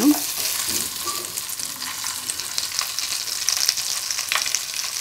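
Hot cooking oil sizzling steadily around whole green chillies just dropped into it with chilli powder.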